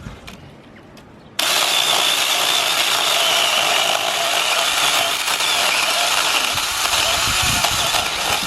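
Battery-powered 6-inch mini chainsaw switched on suddenly about a second and a half in, its electric motor and chain running steadily through a log for about seven seconds, then stopping near the end.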